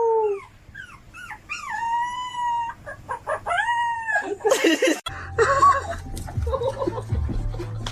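A dog howling: several drawn-out howls, each held on a steady pitch and sliding at the ends. The last ends in a short noisy burst about four and a half seconds in. After that a steady low hum with scattered knocks takes over.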